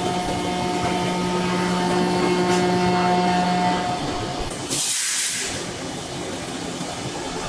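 Heavy forging-shop machinery running with a steady hum. A short burst of loud hissing comes just before five seconds in.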